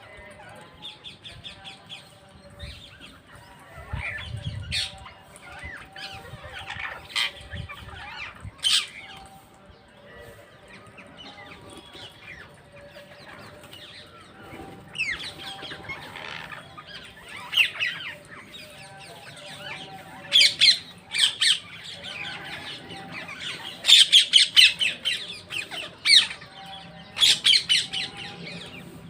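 Parrots squawking: short, harsh calls in scattered clusters, coming faster and louder in quick runs in the second half.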